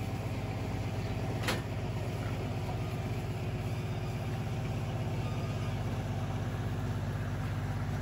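Livestock truck's engine idling steadily, with a single sharp knock about one and a half seconds in.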